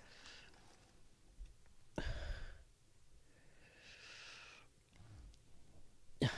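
A man breathing and sighing close to the microphone, a couple of breathy exhales, with a sharp knock near the end as the webcam is handled.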